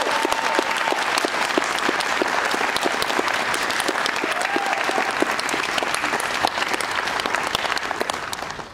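Audience applauding after a taiko drum piece, with a cheer right at the start and another about halfway through. The clapping dies away near the end.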